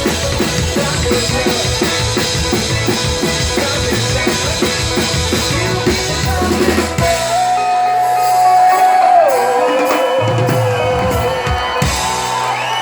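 Live band playing with a drum kit: a driving drumbeat for about seven seconds, then a long held note that slides down in pitch over a few scattered drum hits as the song winds down.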